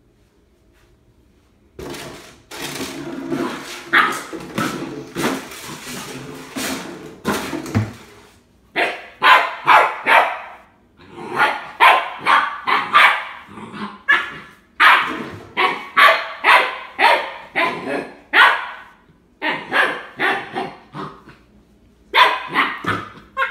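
Puppy growling and barking: a few seconds of lower, continuous grumbling, then a long run of short, sharp barks, about one or two a second, with a brief pause near the end.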